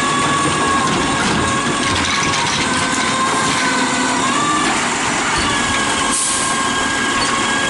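DaDee Scorpion automated side-loader garbage truck working its hydraulic arm as it sets an emptied cart down and pulls back. The engine runs steadily, with a high, slightly wavering hydraulic whine over it.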